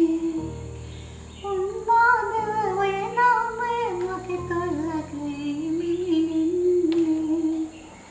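A woman singing a slow melody, holding and bending long notes, over sustained backing chords that change about every two seconds. The song ends shortly before the close.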